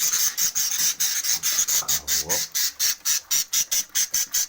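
Budgerigar chicks giving rapid, raspy squawking calls, about seven a second, in a steady run, as they are taken out of the nest box.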